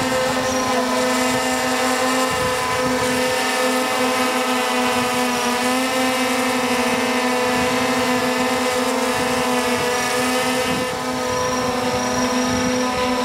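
DJI Phantom 4 Pro quadcopter, carrying a sprayer payload, hovering: the steady buzz of its four propellers, a strong hum with many overtones whose pitch wavers slightly as the motors hold the drone in place.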